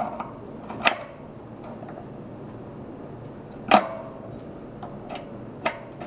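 Steel open-end wrench clinking on the hex of a nickel-plated brass refrigerant service-valve adapter as it is snugged down: three sharp metallic clinks that ring briefly, about a second in, near four seconds and near the end, with a few lighter ticks between them.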